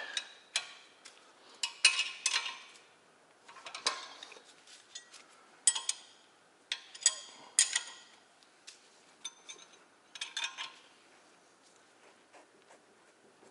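A wrench and socket ratchet clinking and clicking against the 18 mm steel caliper mounting-bracket bolts of a car's front brake, loosening them. The metallic clinks come irregularly and grow sparse near the end.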